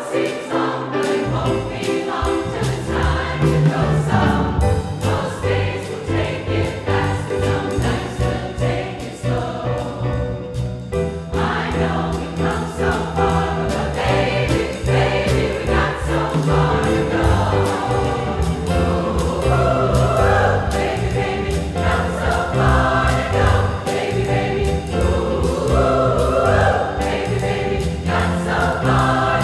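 Large women's choir singing an upbeat song, backed by a live band of drum kit, electric guitar and piano, with a steady beat.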